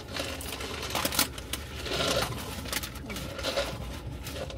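Small mealtime noises: a man drinking from a large paper cup, with light clicks and rustles of handling.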